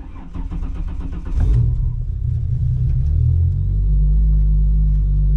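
Holden VY Commodore Calais engine being started. The starter cranks for about a second and a half, the engine catches with a brief flare in revs, then settles into a steady idle.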